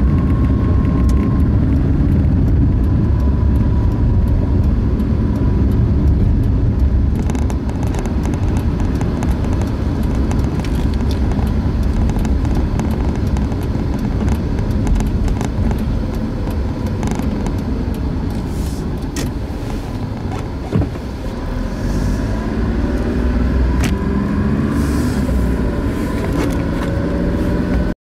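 A car driving, heard from inside the cabin: steady low engine and road rumble, with the engine note rising near the end as the car speeds up.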